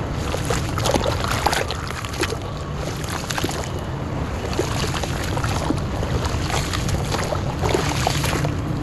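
Muddy water sloshing and splashing in a basin as hands dunk and rub a porous cylinder of dry clay, with many small crackles and drips over a steady low rumble.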